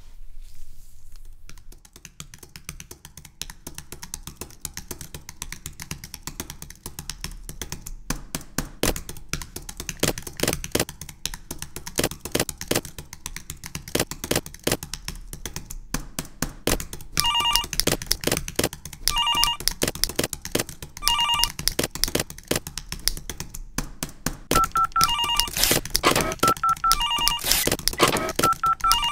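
Office clatter of stapler clicks and keyboard taps. From a bit past halfway, a telephone rings in short trills about every two seconds, and near the end a second phone's ring joins in, alternating with it.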